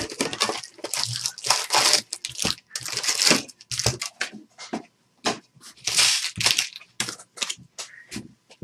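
Foil wrappers of Bowman Chrome baseball card packs being torn open and crinkled by hand: irregular rips and crackles, louder for about two seconds early on and again about six seconds in.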